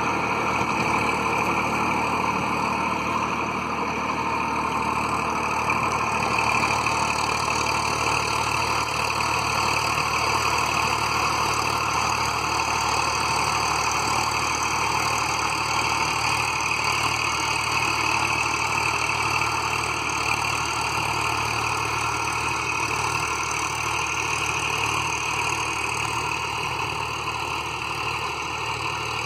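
Tractor engine running steadily as it drives a rotavator through the soil for ploughing.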